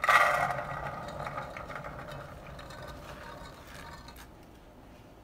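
Soaked red beans poured from a plastic colander into a metal pot: a dense rattle of beans hitting the pot that thins out over about three seconds to a few scattered clicks as the last beans are shaken out.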